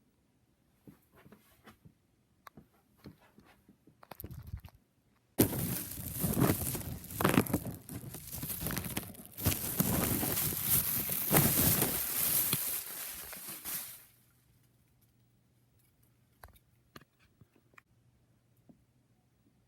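Scattered light clicks, then a long stretch of loud rustling and crunching noise close to the microphone that stops abruptly, followed again by faint clicks.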